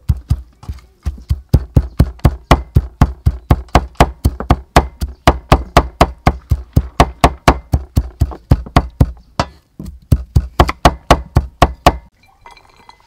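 Cleaver mincing dried shrimp on a wooden chopping block: a fast, even run of loud knocks, about four a second, with a short pause about ten seconds in.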